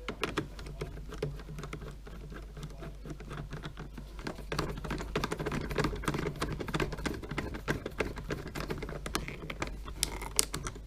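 Many small, irregular plastic clicks and taps as the wheel parts of a 1/14 scale Tamiya RC trailer are handled and worked at the hub, over a steady low hum.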